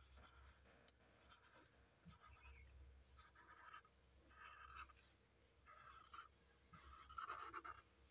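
Faint scratching of a marker drawn over paper in a series of short strokes with brief pauses between them, over a faint steady high whine.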